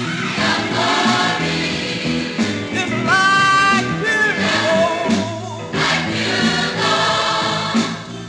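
Gospel recording: a mass church choir singing with a male lead vocalist, with a long held note about three seconds in.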